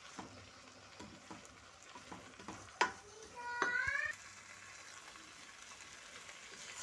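Rice and spiced onions frying in a large metal cooking pot (sufuria), with a faint sizzle and small scraping clicks of a spoon stirring. A sharp knock about three seconds in, then a brief rising pitched squeak. This is the stage where the rice is fried in the spice mix before water goes in.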